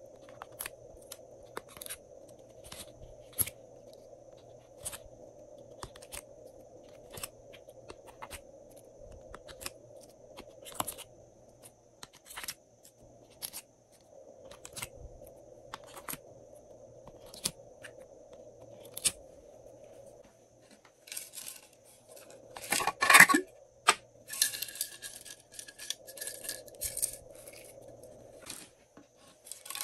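Many short clicks and soft sticky pops as slime shapes are pressed out of a mold tray and dropped onto glossy slime in a glass dish. A louder knock and rattle comes about three-quarters of the way through.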